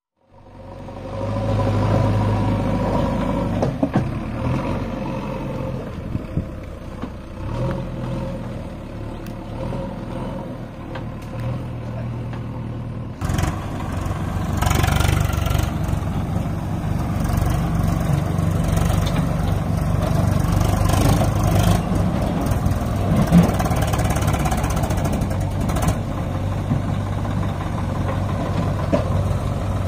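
Swaraj 744 FE tractor's three-cylinder diesel engine running steadily while pulling a tipper trailer, louder and rougher from about thirteen seconds in.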